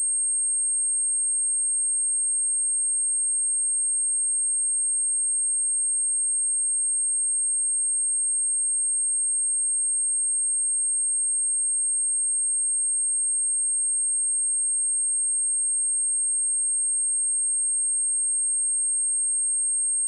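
A pure 8513 Hz sine-wave test tone, one steady high-pitched whistle held at a constant level without change.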